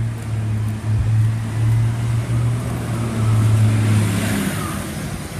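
City bus engine running with a steady low drone as the bus drives up and passes close by. The drone drops away about four seconds in while a hiss rises as the bus goes past.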